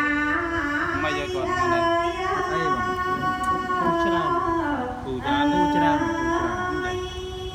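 Khmer smot, Buddhist verse chanted in song by a solo voice: long held notes joined by slow bends and wavering ornaments, with a short breath about five seconds in.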